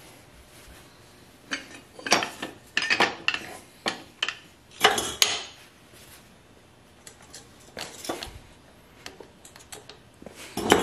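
Metal brick carrier clanking and scraping against a row of bricks as it is clamped on and lifted, with the bricks clinking and grinding against one another. The clatter comes in short bunches, loudest about five seconds in and again at the very end, with lighter ticks in between.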